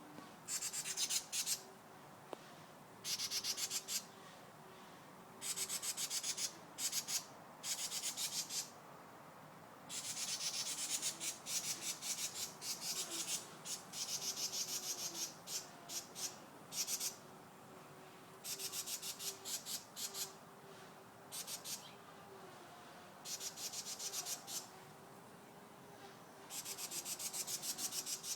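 A bird giving repeated bouts of fast, high, rasping buzzes, each about half a second to a second and a half long, with short pauses between them.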